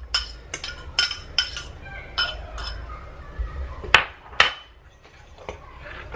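A spoon clinking against a mixing bowl while naan dough is stirred together: a quick run of sharp clinks, then two louder knocks about four seconds in.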